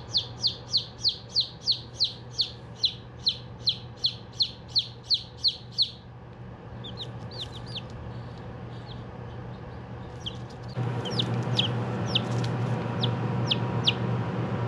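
Young chicks peeping: a fast, regular run of short downward-sliding peeps, about four a second, for the first six seconds, then scattered single peeps. About eleven seconds in, a louder steady hum comes in under the peeps.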